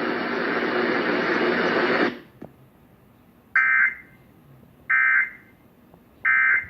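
A steady hiss that cuts off about two seconds in. It is followed by three short EAS end-of-message data bursts, the warbling digital tones that close an Emergency Alert System test, each under half a second long and spaced about 1.3 seconds apart.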